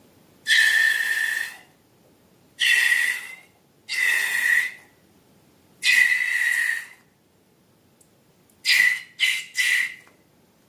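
Air escaping from a balloon's neck in whistling, hissing spurts: four spurts of about a second each, then three short quick ones near the end.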